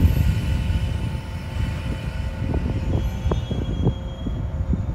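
415 series 1500-subseries electric multiple unit pulling slowly away from the platform: a steady low rumble of the train with a faint steady hum, and a few light knocks around the middle.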